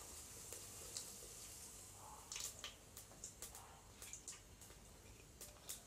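Mustard seeds and spices sputtering in hot oil: scattered sharp pops and crackles, a few a second, starting about two seconds in over a faint hiss.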